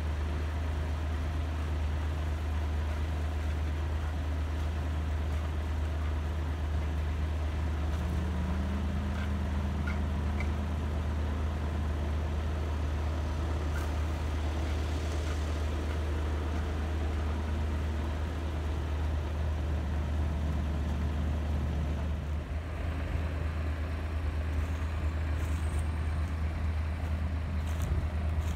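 Yanmar HS 2000 sugarcane harvester's diesel engine running with a steady low drone, with a few light clicks near the end.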